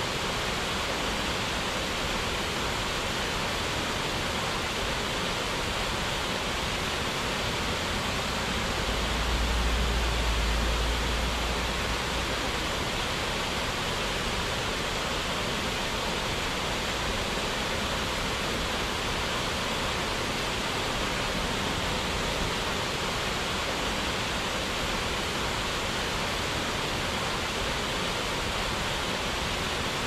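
Steady, even rush of falling water, a waterfall's continuous noise. About nine seconds in, a low rumble swells for a few seconds and fades.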